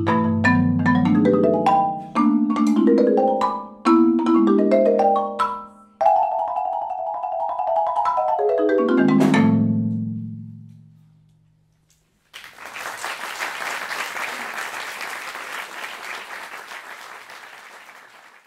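Solo marimba ending a piece: separate mallet strokes, then a rapid roll that sinks to low notes and rings away to silence. About a second later an audience applauds for the last six seconds.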